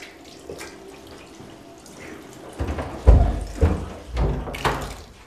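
Water running from a tap into a washbasin, with a few louder splashes in the second half as water is scooped and splashed onto a face.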